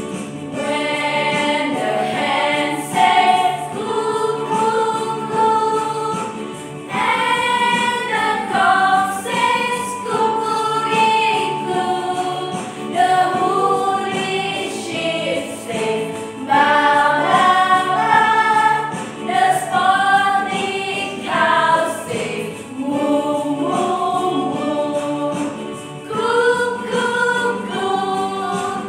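A group of women singing a children's song together, with keyboard accompaniment.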